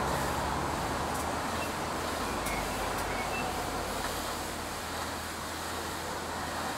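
Steady distant road-traffic noise, a broad hiss and rumble that eases a little over the first few seconds.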